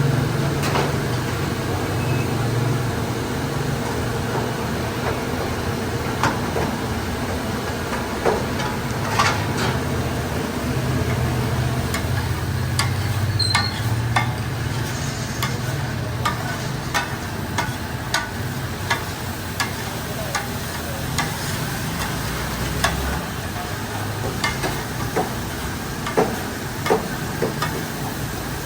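Food sizzling as it fries, with scattered sharp clinks and taps of a metal utensil against the pan over a steady low hum.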